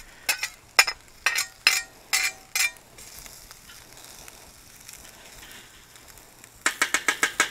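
Metal turner scraping and clinking against a ceramic plate and a steel griddle as mixed vegetables are pushed onto frying rice, about eight sharp strokes, some ringing briefly. Then rice frying in oil and butter gives a steady faint sizzle, and a quick run of spatula scrapes follows near the end.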